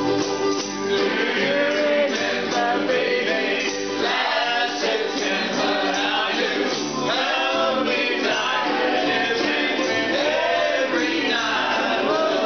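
A group of ukuleles strummed together in a steady rhythm, with many voices singing along in unison.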